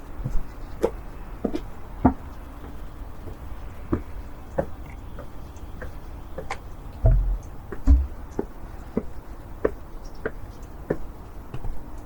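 Footsteps of a person walking at a steady pace, a sharp step about every half second. Two dull low thumps come about seven and eight seconds in.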